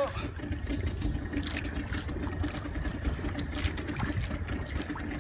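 Low rumble of wind and water around a small outrigger fishing boat at sea, with a faint steady hum running underneath.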